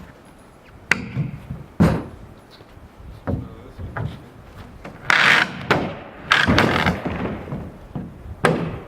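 Knocks and thuds of timber being pried loose and handled while a wood-frame house is taken apart by hand, with longer scraping noises about five to seven seconds in.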